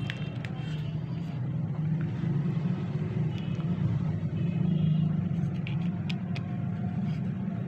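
A steady low rumble, with a few light clicks of plastic toner-cartridge parts being handled.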